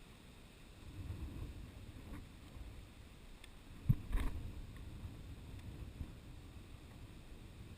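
Wind buffeting the microphone in low, gusty rumbles, with one sharp thump about four seconds in.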